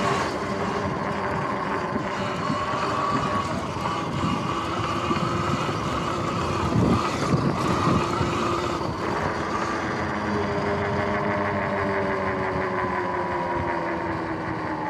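Sur-Ron Light Bee X electric dirt bike under way: a steady whine from the motor and drive that drifts with speed, over tyre and wind rush. A few low thumps come about seven seconds in as it rides over grass, and the whine slowly falls in pitch near the end.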